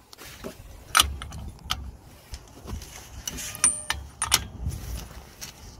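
Metal tools clinking and knocking on a car's rear wheel hub nut as a socket and breaker bar are fitted to tighten it, with sharp knocks about a second in and again past four seconds, and a brief high metallic ring just before the second knock.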